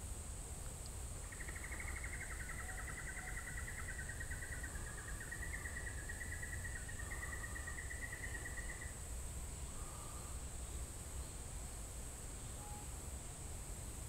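Outdoor insect chirr, a steady high-pitched cricket-like drone, with a rapid trilling call from about a second in until about nine seconds in, over a low background rumble.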